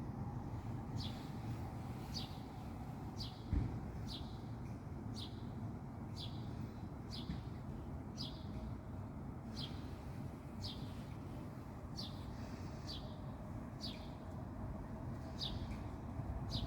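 A single bird repeating one short, high chirp that falls in pitch, about once a second, over a steady low background rumble.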